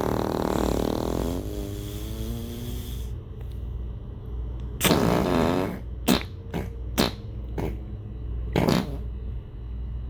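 Fart sound effects: a long, drawn-out fart wavering in pitch and trailing off over the first three seconds, then a louder fart about five seconds in. It is followed by a quick string of four short, sharp ones and another short one near the end.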